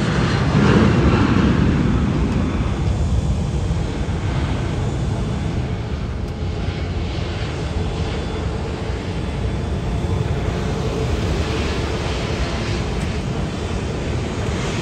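Boeing 757-224's twin Rolls-Royce RB211 turbofans at takeoff thrust as the jet climbs away: a deep rumble whose higher part fades after about two seconds, leaving a steady low roar.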